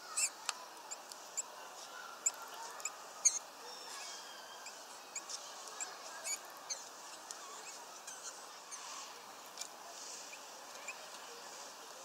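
Small birds calling at a feeder: irregular short, high chips and ticks, a few a second at times, with a few faint thin whistles over a steady soft hiss.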